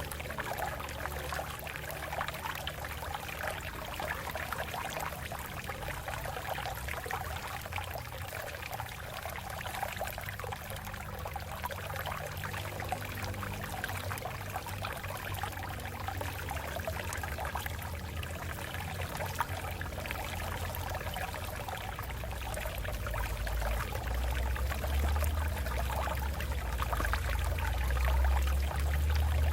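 Water running and trickling over rocks in a steady stream. A deeper low rumble grows stronger in the last several seconds.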